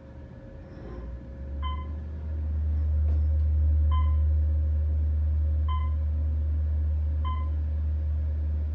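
Otis Series 1 traction elevator starting off and travelling: a low hum from the hoist motor and the moving car swells over the first two seconds or so, then holds steady and loud. A short beep sounds about every second and a half over it.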